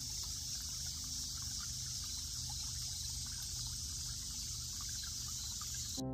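Shallow stream trickling over stones, with a steady high hiss behind it. It cuts off abruptly about six seconds in.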